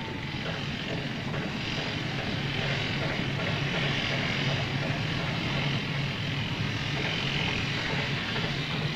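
Steady mechanical drone with a low hum under an even hiss.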